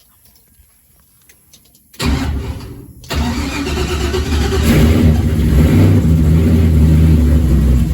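A truck engine cranked by its starter for about a second, catching about three seconds in, and then running loud and steady with a deep note that grows a little louder as it settles.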